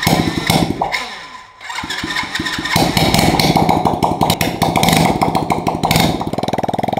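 Coolster 110 pit bike's small single-cylinder four-stroke engine starting. It sputters and nearly dies about a second and a half in, catches, revs hard, then settles to a steady idle near the end. The riders take the stumbling for the engine not getting enough air through the snorkel tube fitted to its intake.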